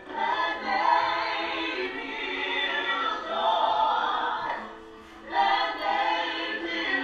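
A family, men and women, singing together as a group, with a short break about five seconds in before the voices come back in.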